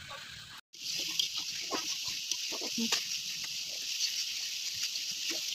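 Fish curry sizzling in a steel kadai, a steady hiss, with short scrapes and clicks from a spatula stirring the pan. The sound drops out briefly about half a second in.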